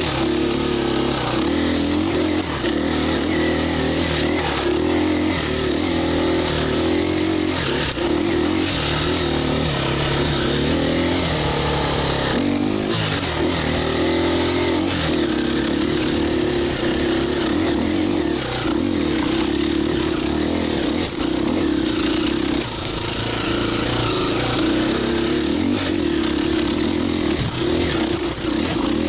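KTM 350 EXC-F dirt bike's single-cylinder four-stroke engine under way, its revs rising and falling as the throttle is worked, easing off briefly about twelve seconds in.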